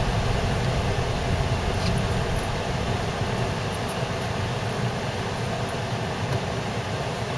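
Steady low rumble of a car driving slowly on a snow-packed road, heard from inside the cabin: engine and tyre noise.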